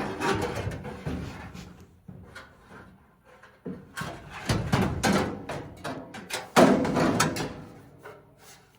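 Sheet-metal knocking, clattering and scraping from the dryer's heating element assembly being worked into place by hand inside the cabinet, in three bursts with quieter gaps between.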